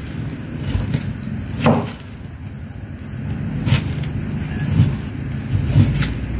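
Several sharp knocks of a large knife chopping into a hard green fruit on a wooden table, about a second apart, over a low steady rumble.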